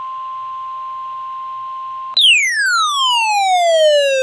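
NOAA Weather Radio 1050 Hz warning alarm tone: a single steady high beep announcing a severe thunderstorm warning. About two seconds in, a louder electronic tone with overtones cuts across it, sliding steadily down in pitch from high to low.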